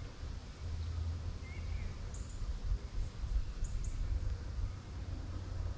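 Outdoor ambience: a steady low rumble of wind on the microphone, with small birds chirping briefly a few times, in short high double chirps.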